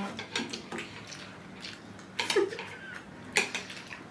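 Chopsticks clicking and tapping against a bowl while noodles are eaten: about half a dozen scattered sharp clicks over a steady low hum.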